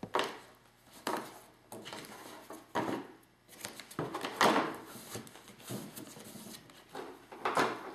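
Scissors snipping double-sided adhesive strip and hands pressing it onto cardstock: about six short, sudden rustles and snips spread a second or so apart.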